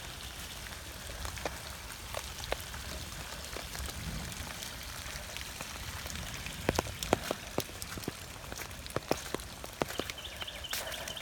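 Rain falling: a steady patter with individual drops hitting sharply close by, coming thickest in the second half.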